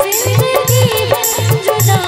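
Live band music with no singing: a bending melody line played over a steady, regular drum beat with cymbal strokes.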